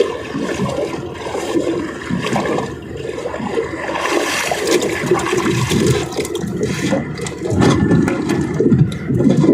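Water rushing and splashing along the hull of a small boat under way.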